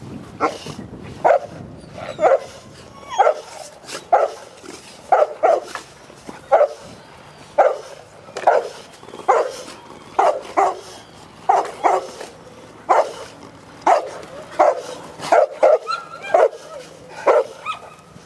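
Cane Corso barking in play, a steady run of short, loud barks about once a second, sometimes two in quick succession.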